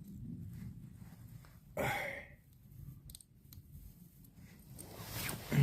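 Small clicks and handling noises from parts being worked by hand, with a short breathy sound about two seconds in and a sharp low thump near the end.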